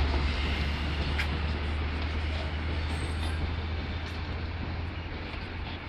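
Container freight train's wagons rolling past on the rails, with a steady low rumble that fades about five seconds in. Road traffic runs alongside.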